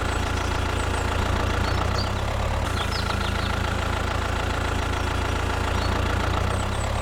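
Small tractor engine idling steadily, a low, even hum.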